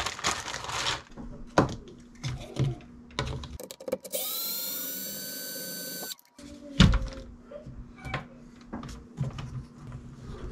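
Plastic parts bag crinkling, then a small electric screwdriver spinning with a steady whine for about two seconds near the middle. The whine rises slightly as it starts and cuts off suddenly. A loud knock follows, then small clicks of parts being handled.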